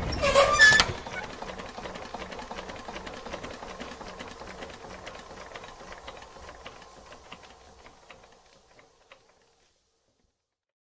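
A short loud burst with a brief pitched tone in the first second, then a fast mechanical clicking rattle that fades away and stops about nine seconds in.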